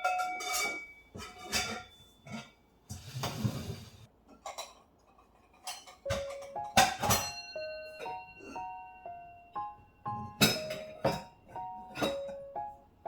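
Soft piano background music with a simple melody, over sharp clinks and knocks of kitchen things being handled, and a brief swishing noise about three seconds in.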